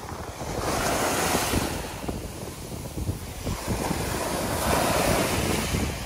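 Small surf waves washing up onto a sandy beach: a surge of foamy hiss about a second in and another about four seconds in, over the low buffeting of wind on the microphone.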